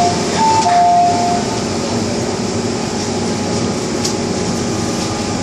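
Steady noise inside an MTR M-Train metro car, with a two-note electronic chime, high then low, sounding in the first second and a half.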